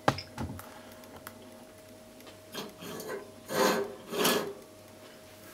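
A ceramic bowl being handled on a gas stove grate: a sharp click and a knock at the start, then a few short scrapes, the two loudest a little past halfway and each under half a second.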